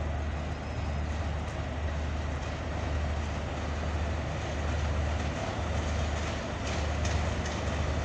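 A Pakistan Railways HBU 20 diesel locomotive hauling its train in at slow speed, with a steady low engine drone under the rumble of the wheels on the track. Near the end come a few sharp clicks from the wheels over rail joints and points.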